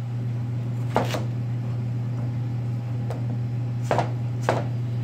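Chef's knife slicing through watermelon and knocking on a cutting board: a sharp stroke about a second in, a faint one near three seconds, and two close together near the end. A steady low hum runs underneath.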